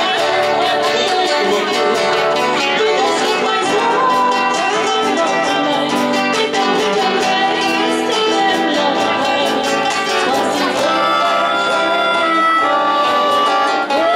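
Live acoustic band playing: a woman singing over strummed acoustic guitars, with cajón and a melodica.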